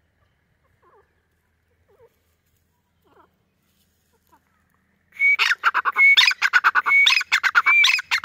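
Grey francolin calling: a few faint single notes, then, about five seconds in, a loud run of repeated phrases. Each phrase is a short held whistle followed by a rapid string of sharper notes, about four phrases in a row.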